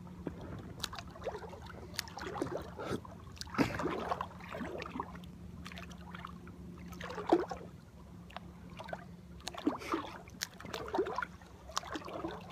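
Water splashing and slapping irregularly against an inflatable rubber boat as it rides small waves, over a faint steady low hum.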